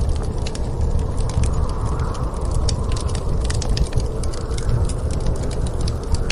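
Fireplace crackling with many quick, sharp pops, over the low rumble of snowstorm wind that swells and eases twice.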